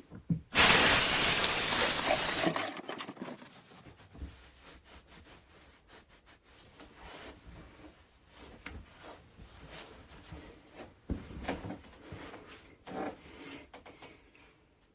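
Water running from a tap for about two seconds, then shut off, followed by faint splashing and rubbing as a freshly shaved face is rinsed of alum.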